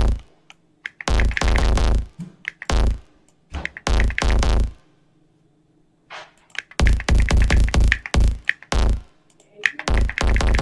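Electronic bass sound built in Ableton Live's Drum Sampler and distorted through Saturator, played as short runs of repeated hits with a deep low end, with pauses between the runs and a longer gap near the middle.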